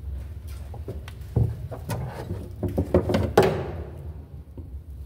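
A freshly caught fish flapping against the floor of a small boat: a quick run of knocks and slaps from about a second and a half in, ending in a louder thump a little after three seconds, over a steady low hum.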